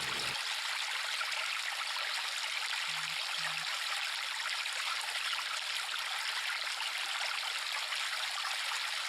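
River water flowing steadily, an even, unbroken stream sound.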